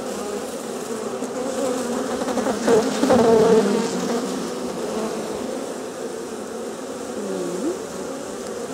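Honeybees buzzing in a dense swarm at the open package box, a steady hum with single bees droning close past and sliding in pitch. The buzzing swells around three seconds in.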